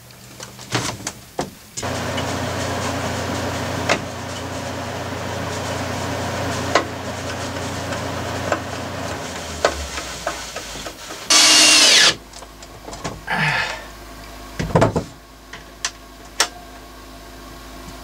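A small motor runs steadily for about seven seconds, then stops. About eleven seconds in there is a short, loud, high whir, with scattered clicks and knocks of handling around it.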